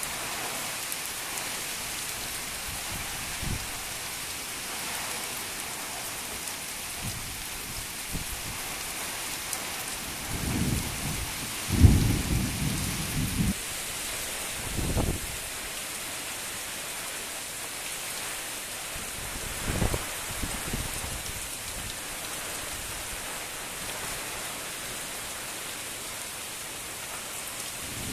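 Heavy wind-driven rain falling steadily as a dense, even hiss. It is broken by several short, deep rumbles, the loudest about twelve seconds in.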